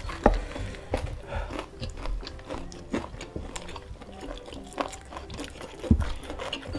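Close-up eating sounds of crispy fried chicken (ayam geprek) and rice eaten by hand: irregular crunching, chewing and wet clicks as the crispy skin is bitten and the meat pulled apart. The sharpest crunches come about a quarter second in and again just before the end.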